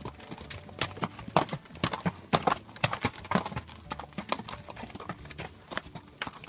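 Horses' hooves clopping as they walk down a rocky trail, sharp irregular clacks several a second as the hooves strike stone.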